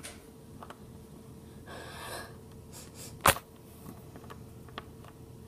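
A short breathy sound, like a sigh or sob, about two seconds in, then a single sharp click of a plastic toy figure knocking on the wooden floor, the loudest sound, with a few faint taps around it.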